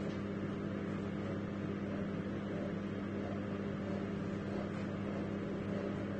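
Steady mechanical hum with a low drone that does not change.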